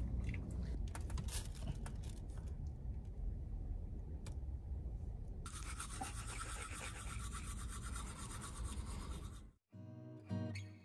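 Teeth being brushed with a manual toothbrush, a scratchy scrubbing over a steady low background rumble for a few seconds. It cuts off suddenly near the end and acoustic guitar music begins.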